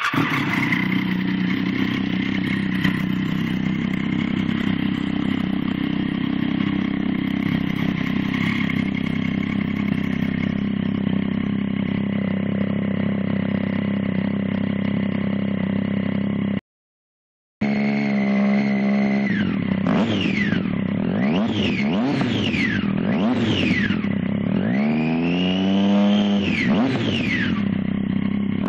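Triumph Street Triple R's inline three-cylinder engine, exhaust baffle removed, idling steadily just after starting. The sound cuts out for about a second past the middle, then the throttle is blipped again and again, the revs rising and falling sharply, with one longer, slower rev near the end.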